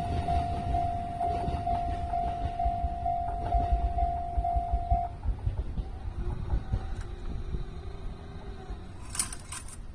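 Japanese level-crossing warning bell ringing about twice a second over the low rumble of a train moving away. The bell stops about five seconds in and the rumble fades, with a short clatter near the end.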